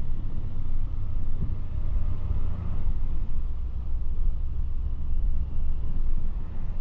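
Steady low rumble of a vehicle driving along a road, with road and wind noise.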